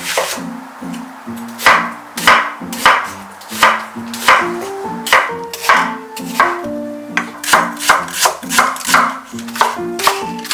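A kitchen knife chopping on a cutting board in sharp, roughly even strokes, about two a second, with light background music underneath.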